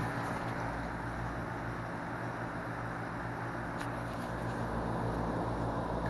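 2003 Lennox Elite 1.5-ton heat pump outdoor unit running normally in heat mode: the compressor and condenser fan make a steady low hum with fan noise, and there is a faint click about four seconds in.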